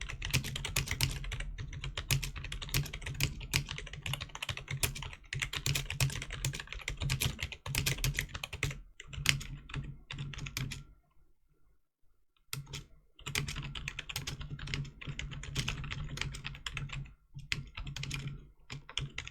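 Fast typing on the Rii RK100's rubber-dome membrane keys: a dense run of key presses that stops for about two seconds a little past halfway, then resumes.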